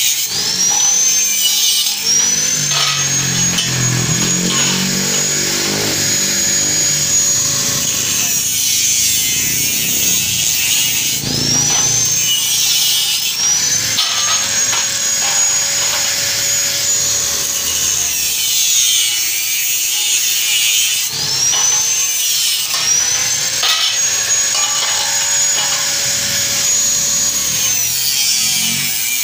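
Electric angle grinder with a cutting disc slicing through square hollow steel tube, cut after cut. Its motor whine runs steadily under the grinding noise and glides back up in pitch several times as cuts finish.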